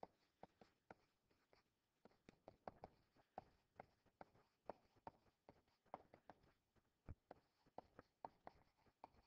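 Faint, irregular taps and scratches of a stylus writing by hand on a tablet screen.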